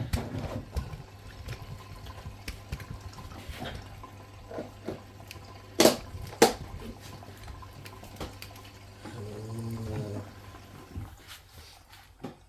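Bosch Serie 6 washing machine taking in water at the start of a wash: water running in with a steady low hum, which stops near the end. Two sharp knocks come about halfway through.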